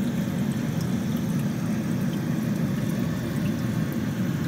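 Steady low hum of aquarium filter pumps circulating water through the tank.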